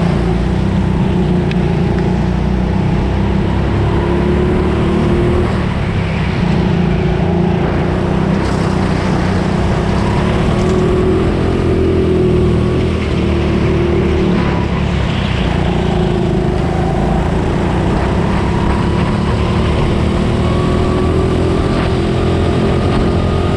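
Go-kart engine heard from on board, running hard with its pitch rising and falling as the kart brakes and accelerates through the corners.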